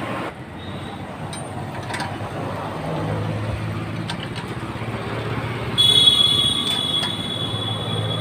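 Steady background machinery hum with a louder whine that comes in suddenly about six seconds in. A few faint metal clinks from a spanner working the rocker arm of a small diesel engine.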